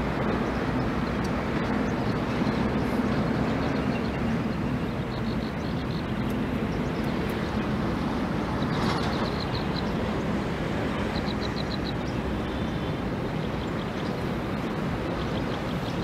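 A steady low rumble with a hum, like a distant motor running. Three times, faint quick runs of high ticking sound over it.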